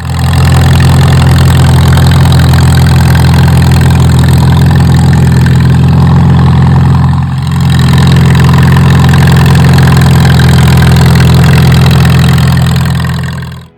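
1944 Farmall H tractor's four-cylinder gasoline engine running steadily and loud, with a brief dip in level about halfway through.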